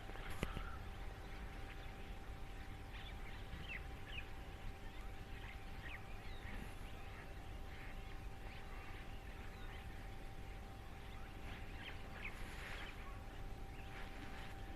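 A large flock of birds calling, with many short chirps scattered throughout, over a constant low rumble and a faint steady hum.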